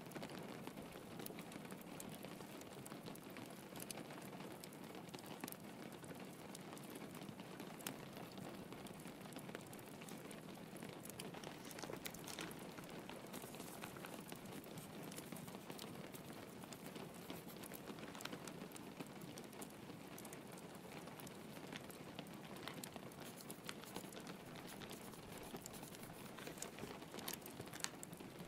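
Soft, steady rain patter against a window, mixed with a wood fire crackling, with scattered sharper pops.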